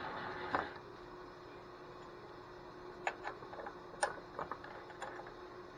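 A running machine motor shuts off with a click just over half a second in, leaving a faint steady hum. Then a few light metallic clicks and ticks as tooling and parts are handled at a vertical milling machine's drill chuck.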